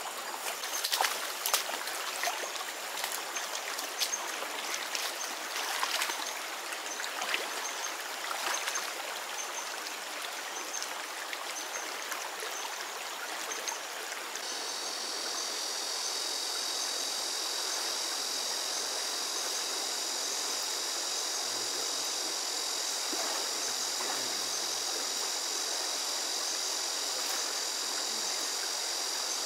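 Scattered rustling and crackling footsteps in grass and undergrowth, then from about halfway a steady rush of flooded, muddy stream water flowing, with a constant high-pitched whine over it.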